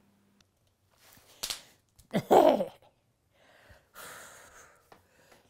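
An elderly woman breathing hard as she gets up and walks: a short breath about a second in, a loud voiced sigh falling in pitch about two seconds in, and a long breathy exhale near the end.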